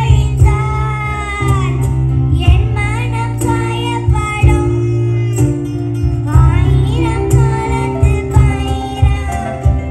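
A young girl singing into a microphone, accompanied by a live band of acoustic guitar and keyboard with a steady beat underneath.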